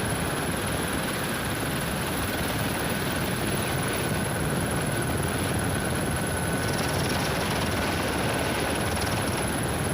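Police rescue helicopter running steadily, its rotor and turbine noise unbroken throughout.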